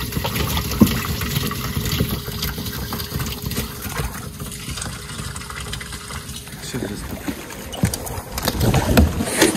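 Water trickling and splashing aboard a fishing boat, with scattered knocks, and a louder splash and knock near the end.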